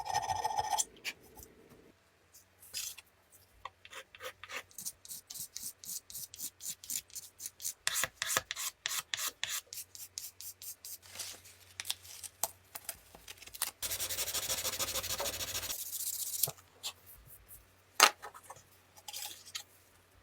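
A hand tool scraping and rubbing on the metal parts in quick repeated strokes, typical of rust removal. A few seconds of continuous rasping come in the middle, and a single sharp knock near the end.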